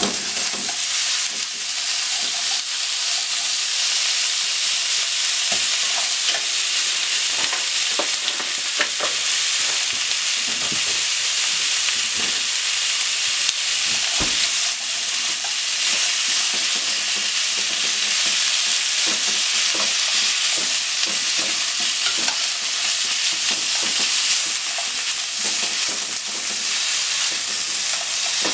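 Thinly sliced pork and onions sizzling in a hot nonstick frying pan. The sizzle grows louder at the start as the raw pork is dropped in. Scattered clicks and scrapes come from chopsticks stirring the meat against the pan.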